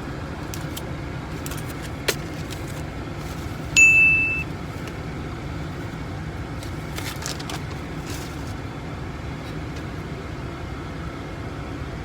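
Steady low rumble of a car heard from inside the cabin, with a short click about two seconds in and a single loud electronic ding about four seconds in that fades out within half a second.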